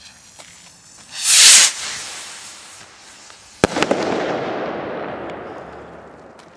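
A firework rocket, a PyroArt Red Purple Peony, shoots up with a loud hissing whoosh about a second in, then bursts with one sharp bang about three and a half seconds in. The bang rolls on and fades slowly over the next few seconds.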